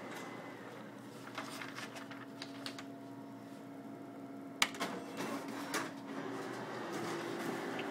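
Office photocopier running with a steady hum. There are light clicks from about one to three seconds in, a single sharp click about halfway through, and a few more clicks after it. The hum's pitch shifts a little near the end.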